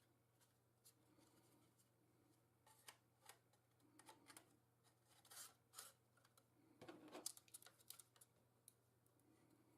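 Faint, scattered clicks and light scrapes of small hard parts being handled, as when working inside a laptop, with a short cluster of them a little past the middle.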